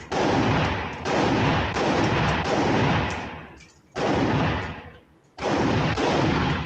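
Gunshots fired one after another at a shooting range, roughly a second or so apart, each followed by a long rumbling echo that dies away.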